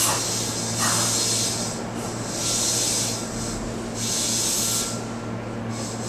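Tokyu 5050-series 4000-subseries electric train at a stand just after an all-electric-brake stop, letting out short bursts of compressed-air hiss about every second and a half, four times, over a steady low electrical hum.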